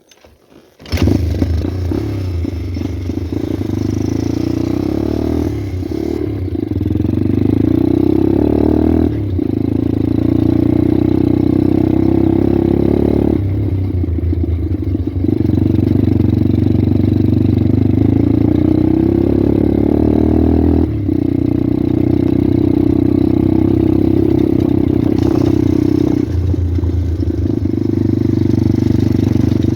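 Pit bike's single-cylinder four-stroke engine coming in loudly about a second in, then pulling under load while riding, its pitch climbing and dropping back every few seconds as the throttle and gears change.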